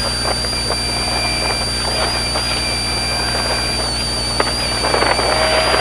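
Mitsubishi Pajero rally car driving fast over desert sand, heard from inside the cabin: a steady engine and road drone with a few short knocks and a thin, steady high whine over it.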